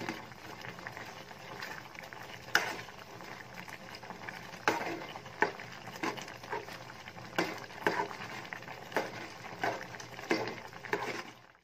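Metal spoon scraping and knocking against an aluminium pot as thick macaroni in a milk sauce is stirred, with irregular strokes about once a second.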